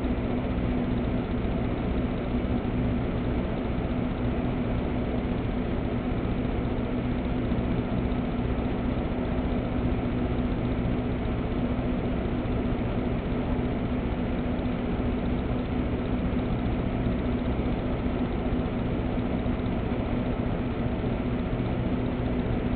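A steady mechanical hum with one clear low tone over an even hiss. It does not change.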